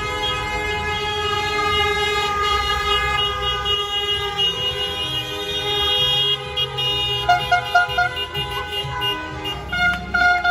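Several car horns held in long, overlapping tones over the rumble of passing cars, honking in celebration. From about seven seconds in come short, repeated toots in quick groups.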